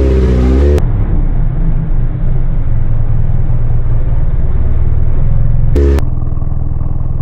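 Kawasaki Z1000's inline-four engine running steadily, a low rumble. The sound changes abruptly about a second in and again near six seconds, where the clip is cut.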